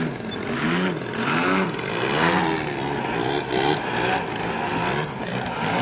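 Radio-controlled model airplane engine running, its pitch rising and falling over and over, about every half second.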